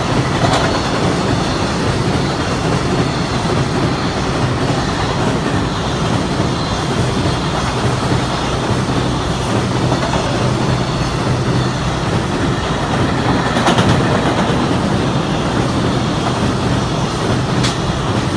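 JR Freight Koki container flat cars rolling past close by: a steady heavy rumble of wheels on the rails. A few clacks sound over rail joints, most noticeably a little past the middle and again near the end.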